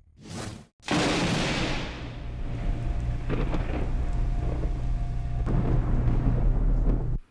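Intro sound effects: a short whoosh, then a sudden thunder-like boom about a second in that rolls on as a deep, steady rumble with scattered crackles, cutting off abruptly near the end.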